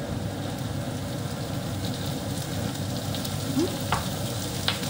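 Onions sizzling in a hot non-stick frying pan, a steady frying hiss. Two sharp clicks near the end.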